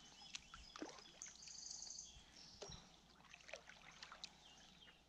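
Near silence on calm water: faint drips and small splashes of kayak paddles, with a short high bird trill about a second in.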